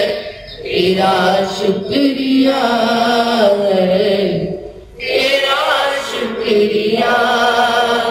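Devotional Jain chanting: a voice sings a prayer in long, held, melodic phrases, with brief pauses about half a second in and again about four and a half seconds in.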